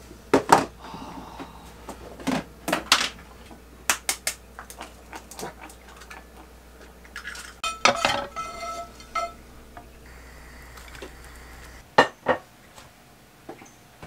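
Dishes and cutlery clinking and knocking in a small room, a string of sharp separate clinks, with one piece ringing briefly about eight seconds in.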